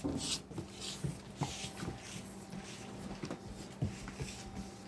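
Scattered light taps and soft scuffs of a German Shepherd puppy's paws and claws moving on the floor as it walks, over a low steady hum.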